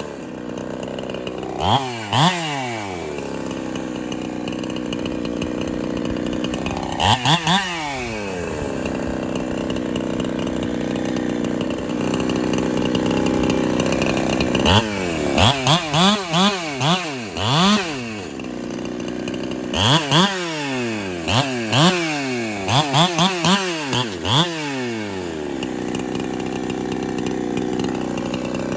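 Ported Holtzfforma 372 two-stroke chainsaw, a clone of the Husqvarna 372, running with repeated quick revs up and back down: a couple of single blips in the first half, then two runs of several rapid revs in the second half.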